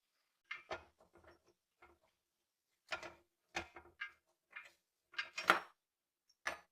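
Irregular knocks and clunks of parts of a rusted vintage scale being handled, about ten in all, the loudest about five and a half seconds in.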